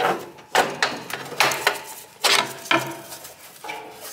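Irregular metallic clinks and knocks, about eight, some ringing briefly: hands and tools working at the spark plug boot in the cramped space around a Kawasaki twin-cylinder mower engine.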